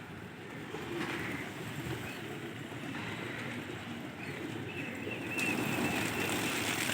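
Domestic gola pigeons cooing steadily, with a thin, high, repeated chirping joining in about two-thirds of the way in.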